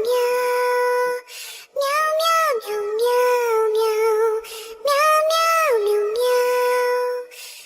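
Soundtrack song: a high, child-like singing voice repeating the same short melodic phrase about every three seconds, each phrase ending on a long held note.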